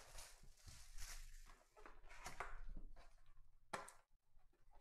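Cellophane shrink wrap crinkling faintly as it is stripped off a trading-card box, then the box being handled and opened, with one sharp tap near the end.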